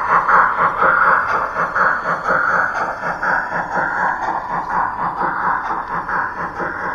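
Model train passenger coaches rolling past close by, their wheels running on the track with a steady rumble and a run of clicks over the rail joints, growing slowly fainter.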